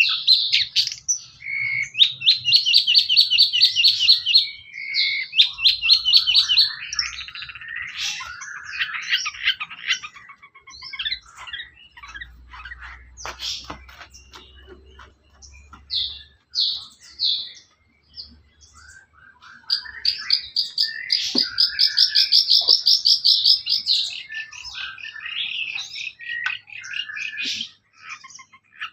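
Long-tailed shrike (cendet) singing: a varied, chattering song of quick notes and fast high trills, coming in bursts with short pauses between them.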